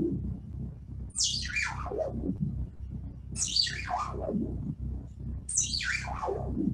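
Modular synthesizer voice under frequency modulation from an added oscillator, playing three falling pitch sweeps, each dropping from a high chirp to a low tone in about a second, spaced about two seconds apart, over a steady low drone.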